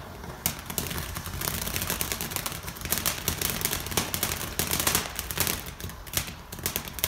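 Ground fountain fireworks spraying sparks over a steady hiss, with rapid crackling and scattered sharp pops.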